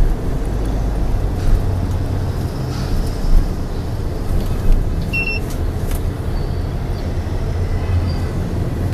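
Motorbike and scooter traffic heard from a moving bike: a steady dense low rumble of small engines and road noise, with a brief high beep about five seconds in.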